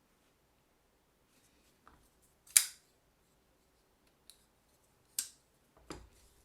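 Blade of a CRKT Maven folding pocketknife being worked open and shut, a handful of sharp metallic clicks, the loudest about two and a half seconds in and another about five seconds in.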